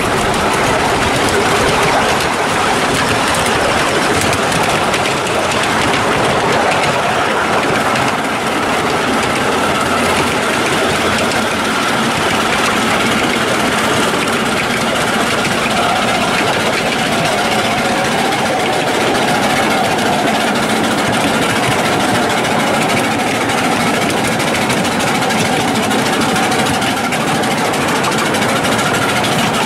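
Miniature railway train running along the track, heard from low on one of its cars: a steady, loud running noise of wheels on the rails with the locomotive working ahead.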